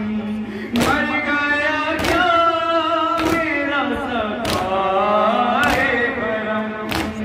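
Male voices chanting a noha, with the crowd's hand matam (chest-beating in unison) landing as a sharp slap about every 1.2 seconds, six strikes in all.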